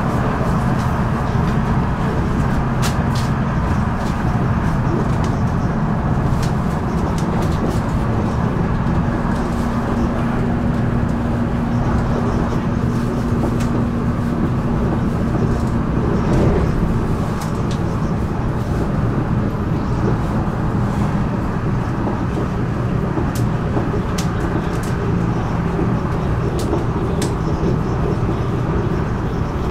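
Alstom Régiolis bimode multiple unit running under diesel power at speed: a steady rumble of engines and wheels on the track, with scattered light clicks. A steady hum drops away a little past halfway.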